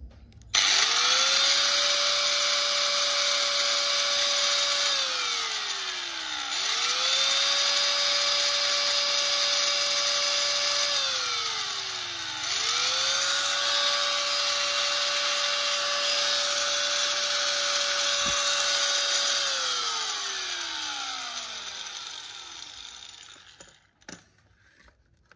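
Hikoki G10SH5 angle grinder running free with no load, switched on three times: each time it spins up quickly to a steady high whine, holds for several seconds, then is switched off and winds down with a falling pitch, the last run-down the longest.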